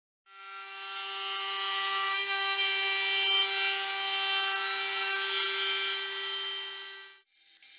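CNC router spindle running a surfacing cutter across a glued-up mahogany board to skim it flat: a steady whine of several tones over the hiss of wood being cut. It fades in just after the start and fades out near the end, followed by a brief rapid ticking.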